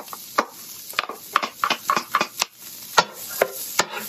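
Wooden spatula knocking and scraping as diced onions are pushed out of a plastic container into a nonstick frying pan and stirred around in the oil: a string of irregular sharp taps, a few a second.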